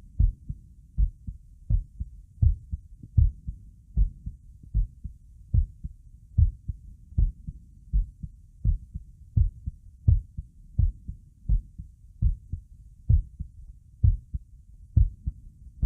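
Human heartbeat: steady, regular deep thumps at about 80 beats a minute.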